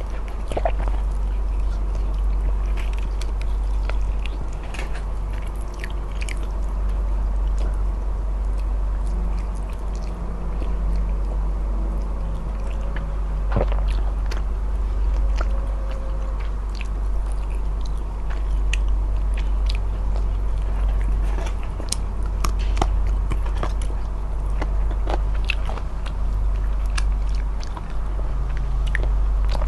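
Close-miked eating: chewing and biting, with many sharp, irregular wet mouth clicks, most likely from eating smoked chicken. A steady low hum runs underneath.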